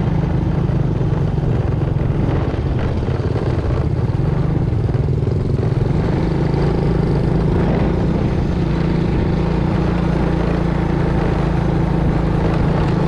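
Motorcycle engine running steadily at cruising speed on a dirt road, heard from a camera mounted on the bike, with wind and road noise over it.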